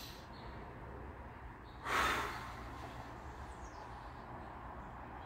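A woman breathing out slowly through pursed lips in an 8-8 paced breathing exercise. The breath starts with a louder puff about two seconds in and trails off into a soft, steady exhale.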